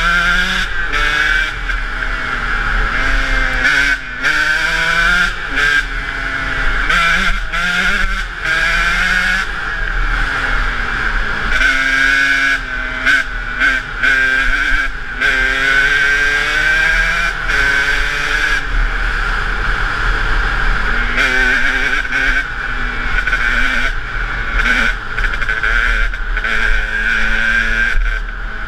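KTM EXC 125's single-cylinder two-stroke engine revving under way, its pitch rising and falling over and over as the bike accelerates and backs off, heard from a helmet-mounted camera.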